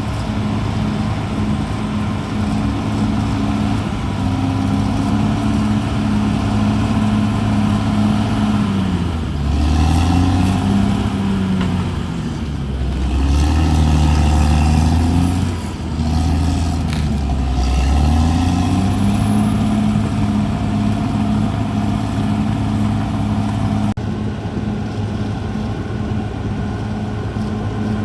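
Crawler bulldozer's diesel engine running steadily. Midway its pitch dips and picks back up several times before settling again.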